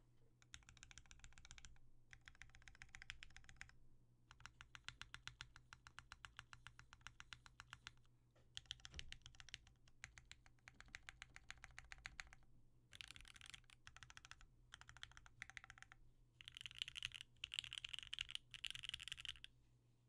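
FoxLab Leaf65 mechanical keyboard with an FR4 plate, lubed OP Black switches and CRP Tulip keycaps, keys pressed in rapid runs: several bursts of quick, evenly spaced clacks with short pauses between them. The last bursts are the loudest.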